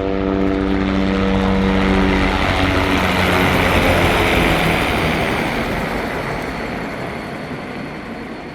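Helicopter flying low past at close range. Its rotor's steady hum gives way about three seconds in to a loud rushing, which peaks about four seconds in and then slowly fades as it moves away.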